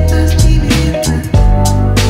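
Background music with drums and a strong, sustained bass line.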